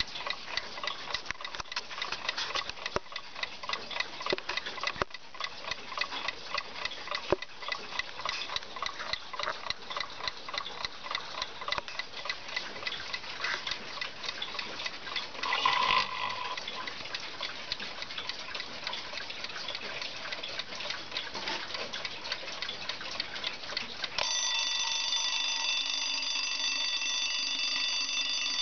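JAZ mechanical alarm clock ticking steadily, with a few light clicks and a short louder sound past the middle. About 24 seconds in, its alarm bell goes off and rings continuously.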